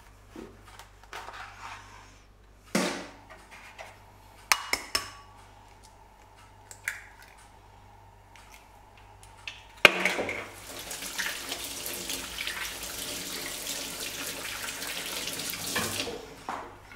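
Kitchen prep sounds. A few scattered knocks and clicks of a knife on a wooden cutting board. About ten seconds in comes a sharp crack, likely an egg being broken on a glass bowl, then water runs steadily from a tap for about six seconds before shutting off.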